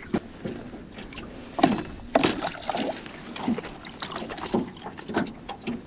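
A bucket dipped over the side of a small boat for water and a pike lifted into it: scattered splashes and handling knocks, the sharpest about one and a half and two seconds in.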